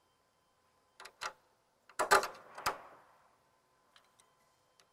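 Small metallic clicks and clinks of a bolt and hand tools being handled while the lower shock bolt is fitted. Two light clicks come about a second in, a louder cluster of knocks about two seconds in rings briefly, and a few faint ticks follow.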